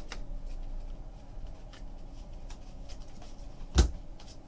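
Trading cards being handled by hand: faint small ticks and slides of card stock, with one louder knock about four seconds in.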